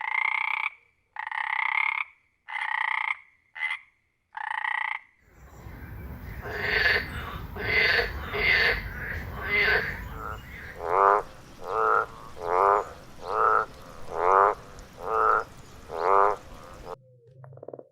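Frogs croaking in a series of short, separate calls. About five seconds in, a different recording with a steady low background noise takes over, and the calls come at an even pace of about one a second. It cuts off suddenly near the end.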